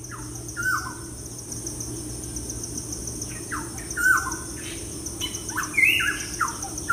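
A bird giving short chirps that fall in pitch, scattered irregularly, about a dozen in all, over a steady high insect trill.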